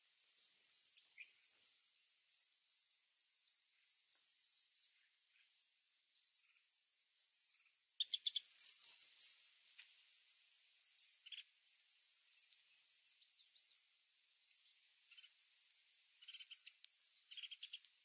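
Thin, high chirps of red-whiskered bulbul nestlings begging in the nest. About eight seconds in they turn denser, with a burst of rustling and a couple of sharp clicks as the adult bulbul comes to feed them.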